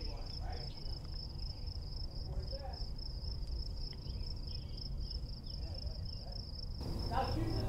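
Insects trilling steadily at one high, even pitch, over a faint low rumble.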